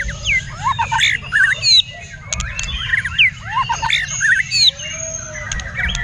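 White-rumped shama singing close by: a rapid, varied run of short whistled notes sweeping up and down, with sharp clicks between them, the hard glassy contest song that fans call 'muntah beling'. A steady low rumble lies underneath.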